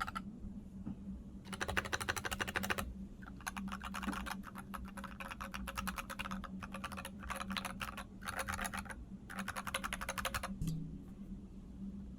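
Typing on a NovelKeys NK65 v2 aluminum mechanical keyboard with lubed and filmed NovelKeys Cream linear switches and PBT keycaps. The keystrokes come in several fast runs separated by short pauses, and the last run stops about ten and a half seconds in.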